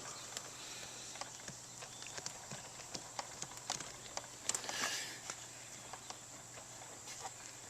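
Scattered light clicks and taps, with a brief rustle about four and a half seconds in, of hands and tools working a choke cable loose from an ATV.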